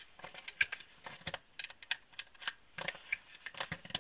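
UpLula pistol magazine loader clicking as .380 cartridges are pressed one by one into a small Ruger LCP magazine: a quick, irregular run of sharp clicks and taps.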